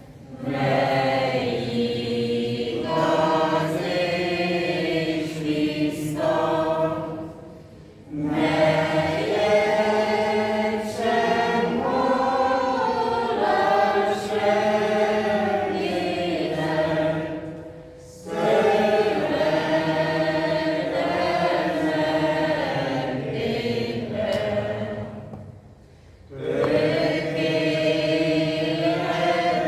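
A small mixed choir of men and women singing a hymn in Romanian, in long sustained phrases with three short breaks between them.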